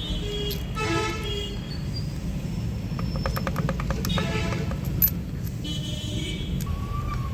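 Vehicle horns honking over a steady low traffic rumble. Partway through comes a short run of rapid clicking, then a single sharp knock.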